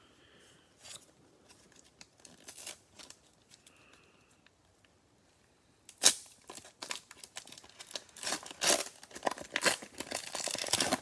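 The cellophane wrapper of a Mosaic football cello pack being torn open and crinkled: a sharp rip about six seconds in, then a dense crackling of plastic.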